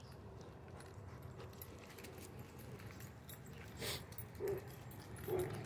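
A dog giving three short barks in the second half, each louder than the last.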